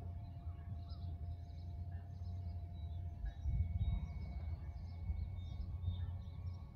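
Faint waterside ambience: scattered small bird chirps over a low, steady rumble.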